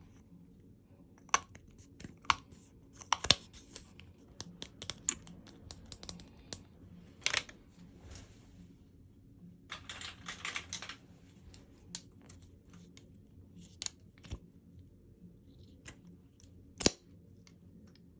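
Hands handling and opening packaging: scattered sharp clicks and taps, with a rustling, tearing stretch of about a second some ten seconds in.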